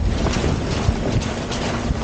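Wind rushing over the microphone of a roof-mounted camera on a moving Land Rover Defender, over the low rumble of the vehicle driving a rough gravel track, with scattered knocks.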